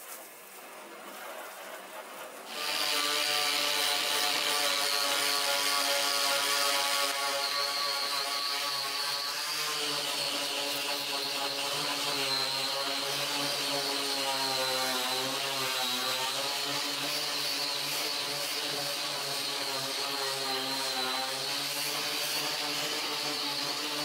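A water jet hisses for about the first two and a half seconds. Then an electric angle grinder comes in abruptly, running steadily at full speed with an abrasive disc sanding the washing machine's sheet-metal cabinet, its pitch wavering a little in the middle.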